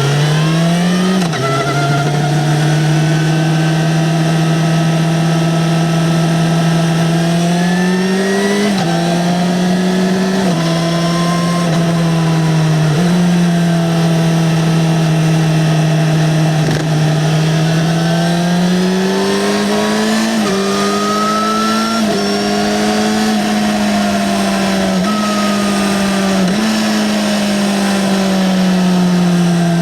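Yamaha XJ6-N inline-four motorcycle engine through its stock exhaust, ridden at moderate revs. The pitch rises and falls gently with throttle, with several quick steps where gears change.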